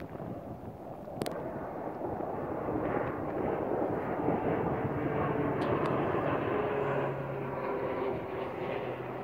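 Propeller airplane flying low overhead, its engine drone growing louder and then dropping slightly in pitch as it passes.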